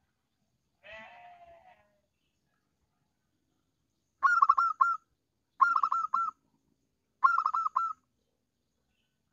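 Zebra dove (perkutut) song: three loud bursts of rapid staccato cooing notes, each under a second long and about a second and a half apart, after a fainter, lower call about a second in.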